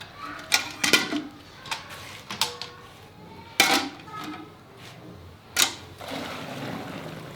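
Irregular sharp knocks and clatters, about six of them, the loudest about three and a half seconds in, followed near the end by a steady rushing hiss.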